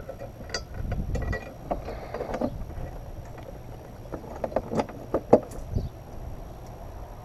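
Scattered light clicks and knocks of a metal motorcycle mounting bracket being handled and fitted against the bike's rear bodywork, with the sharpest click about five seconds in, over a low rumble.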